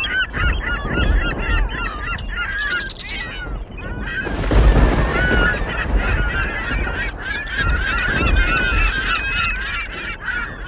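A flock of birds calling, many short calls overlapping at once, over a low rumble, with a loud noisy surge about four seconds in.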